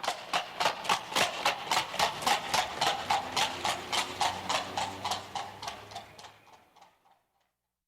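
Horse's hooves clip-clopping in an even rhythm, about three to four strikes a second. They build up at the start and fade away over the last couple of seconds.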